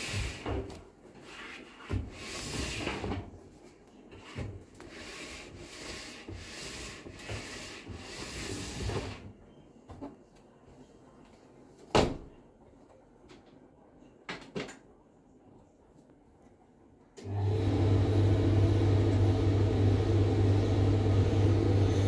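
Fabric rustling and scraping against the metal drum of a Hotpoint vented tumble dryer as clothes are loaded, then a single sharp clunk about halfway through as the door is shut, and a couple of faint button clicks. About three-quarters of the way in the dryer starts, and its motor and drum run with a loud, steady, low hum.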